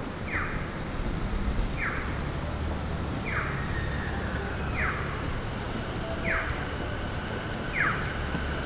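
Electronic chirp of an audible pedestrian crossing signal, one short falling chirp about every second and a half, over the steady hum of city traffic.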